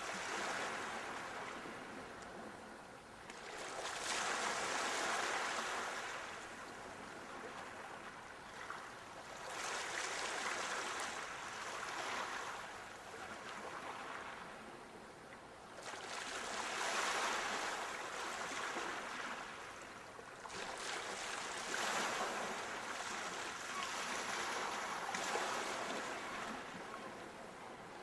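Sea waves breaking and washing on a shore, the rush of surf swelling and ebbing in slow surges every few seconds.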